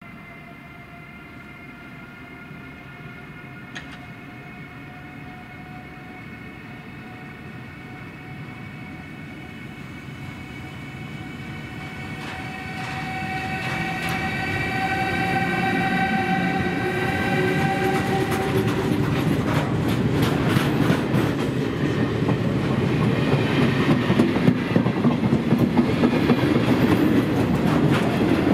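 Class 183 electric locomotive hauling a train approaches with a steady high whine of several tones, growing louder. It then passes close by with a heavy rumble and rapid clicking of wheels over rail joints.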